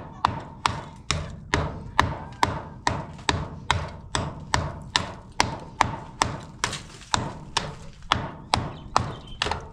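Claw hammer striking the edge of a cinder-block wall in a steady run of sharp blows, a little over two a second.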